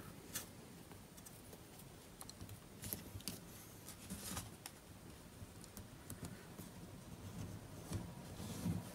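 Faint, scattered small clicks and taps of tweezers and fingertips working adhesive strip onto the edge of an opened tablet's frame, a few a second at most, with pauses between.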